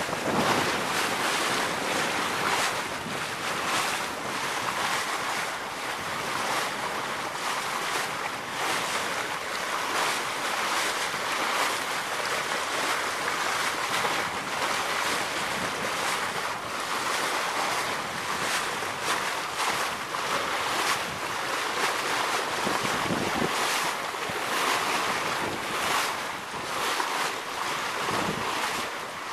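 Wind buffeting the microphone and water rushing past the hull of a sailboat under way, a steady hiss with frequent short surges.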